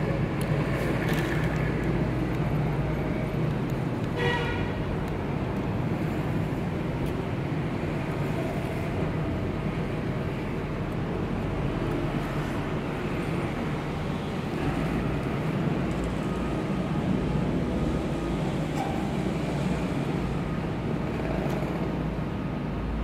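Steady low background rumble with a brief pitched toot about four seconds in.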